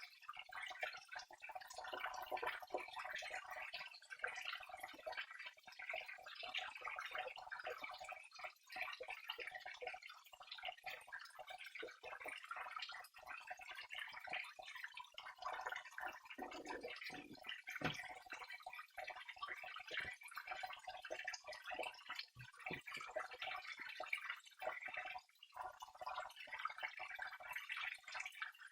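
Flowing water trickling and dripping in a steady, continuous babble.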